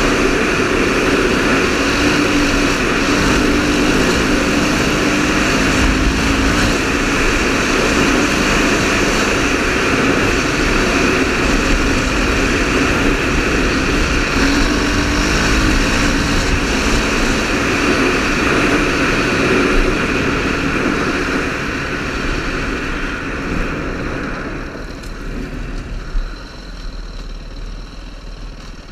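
KTM 530 rally motorcycle's single-cylinder four-stroke engine running steadily under way, growing quieter near the end.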